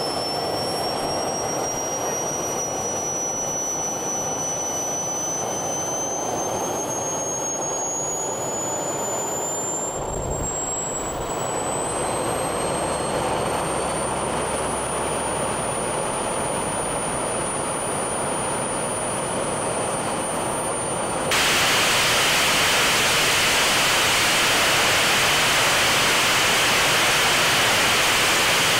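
Swiwin SW120B model turbojet engine running, its high turbine whine climbing steadily in pitch over the first half and then holding steady. About two-thirds of the way through the sound switches abruptly to a louder, even rushing hiss.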